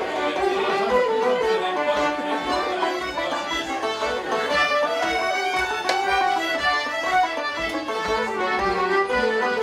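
Irish traditional session music: several fiddles and a banjo, with other instruments, playing a lively tune together in unison.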